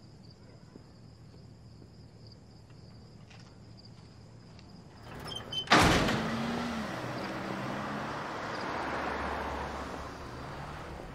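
A car drives past close by. Its engine and tyre noise come in suddenly and loud about halfway through, with a falling engine tone, then a steady rush that eases toward the end. Before it, there is only faint insect chirring in the night quiet.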